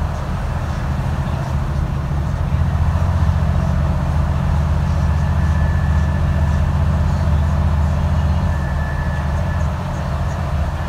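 Alexander Dennis Enviro400 MMC double-decker bus engine running under way, heard on board: a steady low drone that grows louder a couple of seconds in and eases off near the end.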